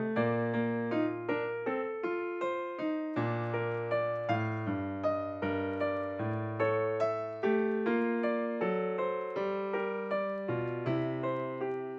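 Background music: a solo piano piece, notes struck one after another at an even pace, each decaying before the next.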